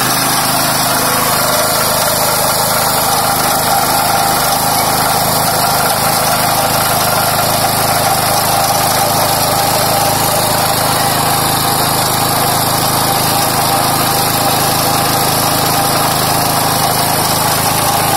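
Small single-cylinder petrol engine running steadily, driving an all-in-one grinder that is being fed black soldier fly larvae to mill them into paste.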